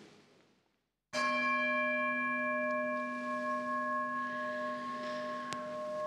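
An altar bell struck once about a second in, ringing on with several steady tones that fade slowly. It marks the elevation of the chalice at the consecration of the Mass.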